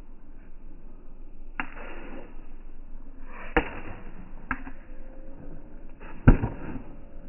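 Pickleball rally: four sharp pops of a hard plastic ball off paddles and the court surface, the loudest about six seconds in.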